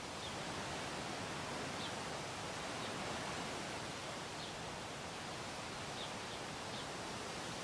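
Steady outdoor noise hiss, with a small bird giving faint, short high chirps now and then, three in quick succession near the end.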